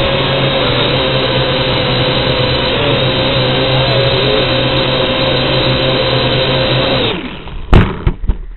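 The electric motors and propellers of a small remote-control drone, heard through its onboard camera, give a loud, steady whine whose pitch wavers slightly. About seven seconds in the whine cuts off, and a loud thump and a few smaller knocks follow as the drone hits the ground.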